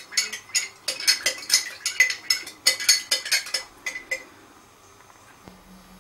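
A metal spoon clinking and scraping against a metal pot and jar while food is dished out, a rapid run of ringing clinks for about four seconds that then stops.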